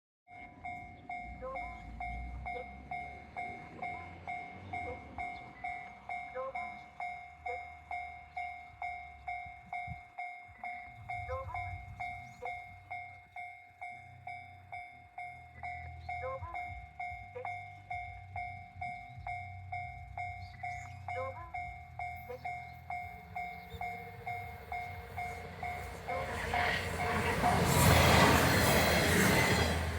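Japanese level-crossing warning bell dinging steadily, about one and a half to two strikes a second. Near the end a KiHa 110 diesel railcar runs past at speed, its loud passing noise swamping the bell.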